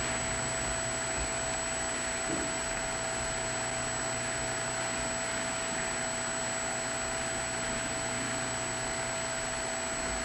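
Steady hiss with a thin high whine and a lower steady tone and hum underneath: the background noise of an old analog video recording, unchanging throughout.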